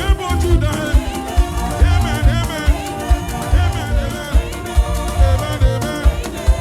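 Live worship band music with a steady beat: low drum hits about twice a second under a gliding melodic line.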